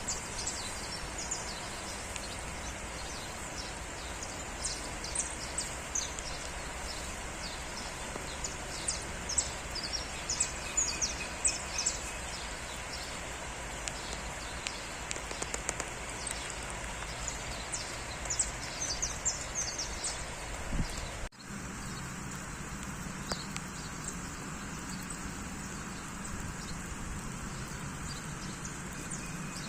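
Steady rain with birds chirping over it, the chirps thick in the first part. After a brief break about two-thirds of the way in, the rain goes on with a low hum underneath and fewer chirps.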